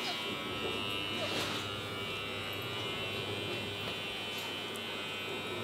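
A steady electric buzz with a high whine, like a small motor running, with a couple of faint clicks.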